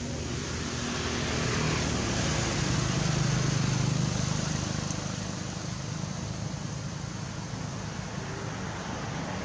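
Steady outdoor background noise with a low engine hum that grows louder and then fades over a few seconds in the first half: a motor vehicle passing.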